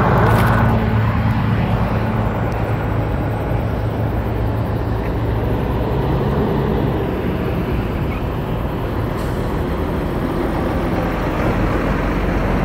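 Diesel engines of semi trucks pulling flatbed trailers, running steadily as they pass, a low even drone.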